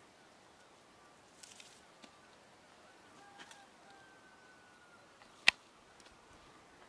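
Quiet outdoor background with one sharp, very brief click about five and a half seconds in.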